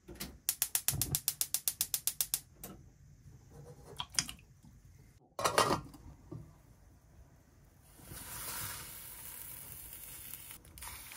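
A gas stove's igniter clicking rapidly, about fifteen clicks in two seconds. Two louder knocks follow, then a steady hiss from about eight seconds in.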